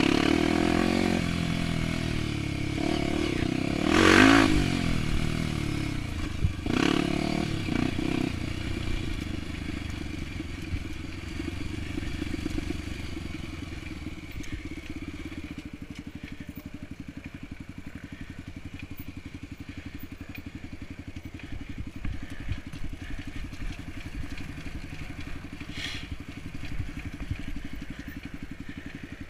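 Single-cylinder Honda XR 250 Tornado trail-bike engine, bored out to 280cc and fitted with a ProTork Powercore 3 exhaust. It revs hard over the first several seconds, with a sharp rise and fall in pitch about four seconds in and another blip near seven. It then settles to a quieter, steady run at low revs for the rest.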